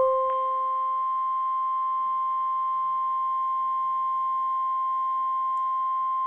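NOAA Weather Radio warning alarm tone, a steady 1050 Hz beep that signals a warning message is about to be read. At the very start a louder, lower tone sets in sharply and fades out within about a second.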